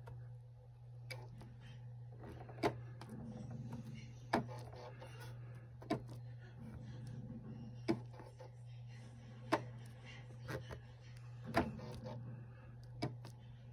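Husqvarna Viking 1100 computerised sewing machine switched on, its stitch-selector buttons pressed one after another: a sharp click roughly every one and a half to two seconds as each new stitch is chosen, over a steady low hum.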